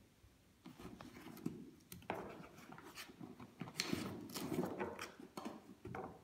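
Irregular rustling with light plastic clicks and small knocks as spare drone propellers in a cloth pouch and a cable are handled and set down on a wooden table.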